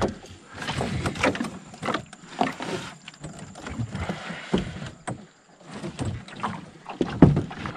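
Irregular knocks, thumps and scrapes against a kayak hull as a catfish is hauled up over the side and handled in the boat.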